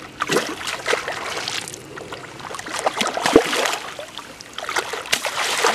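Bighead carp thrashing and splashing at the water's surface beside a landing net while being played in, a run of irregular splashes with a sharper, louder splash about three seconds in.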